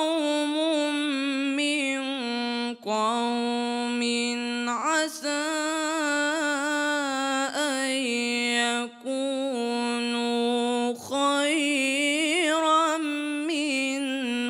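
Young male reciter chanting Quran verses in the drawn-out melodic mujawwad style into a microphone: long held notes with wavering ornaments, broken by a few short pauses for breath.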